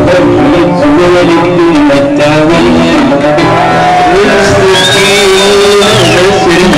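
Live North African folk music led by a plucked string instrument, with a wavering melody line throughout. Near the end, a high held note glides in, holds for about a second and glides out.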